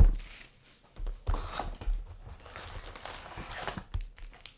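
Crinkling and rustling of plastic wrap and card packs being handled and torn open, with a knock at the start.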